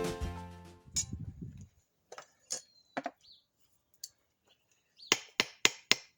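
Music fading out, then a series of sharp clinks and knocks of hard objects being struck, ending in four quick strikes close together.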